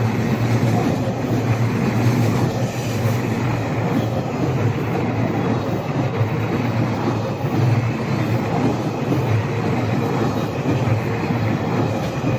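Freight train hauled by an EH500 electric locomotive rolling steadily past: a continuous, even rumble of wheels on rails.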